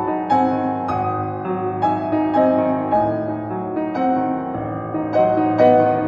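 Background music: a piano playing a slow, gentle melody with chords.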